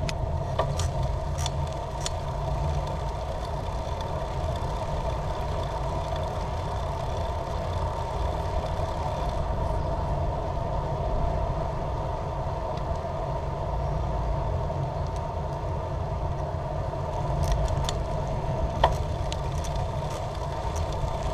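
Steady rumble of a bicycle rolling over pavement, tyre and wind noise picked up by a GoPro mounted on the handlebars, with a few sharp clicks and rattles scattered through it.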